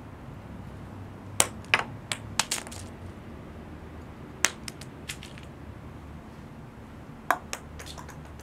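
Acorns dropping onto stone paving: sharp, irregular clacks, a quick cluster of about six a second or so in, a few more midway, and another handful near the end, some followed by a small bounce.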